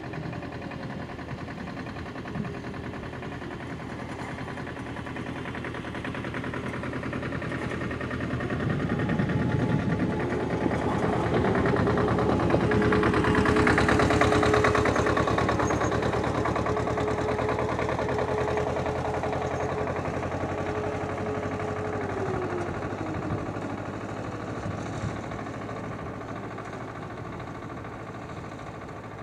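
Distant E57 motor sirens sounding the fire-alarm signal. One wail dies away at the start; a new one winds up about ten seconds in, holds a steady tone for about ten seconds and winds down. A tractor's engine passing close by swells over it, loudest in the middle, and fades.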